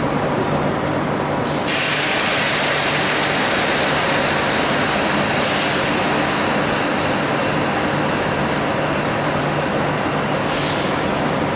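Renfe Cercanías electric train standing at the platform, with a steady hum and hiss. A louder hiss sets in about one and a half seconds in and holds, flaring briefly twice.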